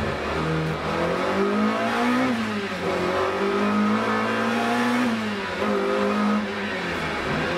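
BMW M3 2.5 Group A race car's four-cylinder engine, heard from inside the cockpit, revving hard under acceleration. Its pitch climbs and drops back three times, at about two seconds in, five seconds in and near the end.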